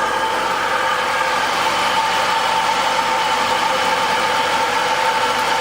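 Car engine idling steadily on fresh oil just after an oil change.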